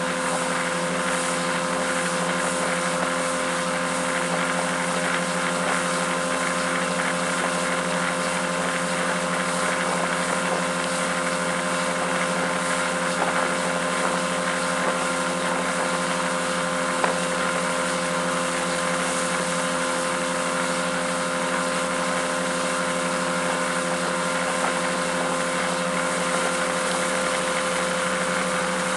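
Mercury 200 outboard motor running at a steady planing speed, one unchanging drone, under a constant rush of wind and water.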